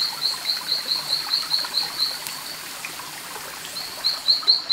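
A rapid run of short, high chirps from a calling night animal, about five a second, pausing for about a second midway and then starting again, over a faint steady hiss.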